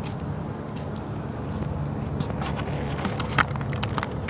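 Handling noise from a camera being picked up and carried: scattered clicks and rustles over a steady low hum.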